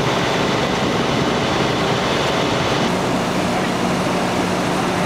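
Steady mechanical drone of engines running on a fire scene, without pauses or distinct strikes. A steady low hum joins about three seconds in.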